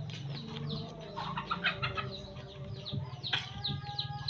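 Chickens clucking, with many rapid, short high chirps and a longer call about three seconds in, over a low steady hum.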